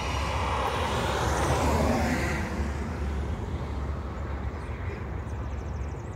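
A car passing on the roadside highway: tyre and engine noise swell to a peak about two seconds in, then fade away, over a steady low rumble.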